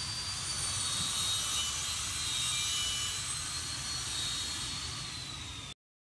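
Steady outdoor background noise: a high hiss with faint thin high whines over a low rumble, cutting off abruptly near the end.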